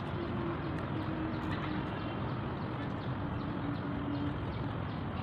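A dove cooing, a low note held in a few broken pieces that stops about four seconds in, over steady outdoor background noise. Faint clicks of a fork and spoon on a plate come through now and then.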